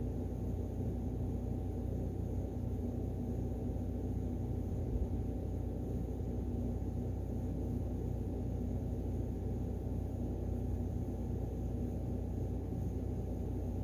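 Steady low background hum with a few constant tones and faint hiss, room tone; a small tick about five seconds in.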